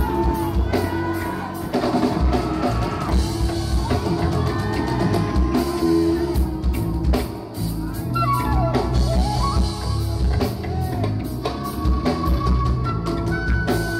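Live band music with a drum kit keeping a steady beat and melodic lines, from guitar and a voice, that bend and slide in pitch over it.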